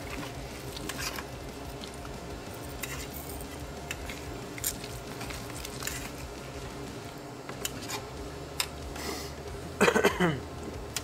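Knife and fork clicking and scraping against metal serving trays, in scattered small clinks. Near the end a brief, louder sound falls steeply in pitch.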